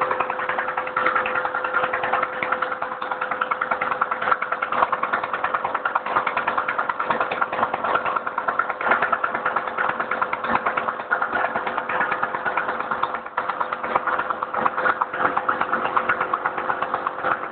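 Two-stroke motorbike engine converted to run on compressed air, fed through a check valve in place of the spark plug, running fast and unevenly: 'wild and shaggy'. A steady tone runs alongside the rapid strokes, which falter briefly near the end.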